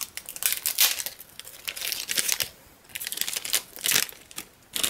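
Packaging crinkling and rustling in irregular bursts as it is handled by hand, with two short pauses.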